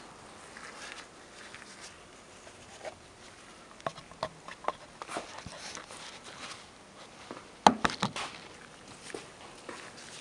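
Scattered light clicks and taps of small parts and packaging being handled at a workbench, with a louder clatter about three quarters of the way through.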